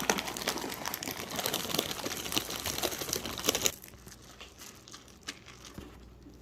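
Plastic bag of chocolate chips crinkling as it is handled and opened, a dense crackle that stops about three and a half seconds in, followed by a few faint clicks.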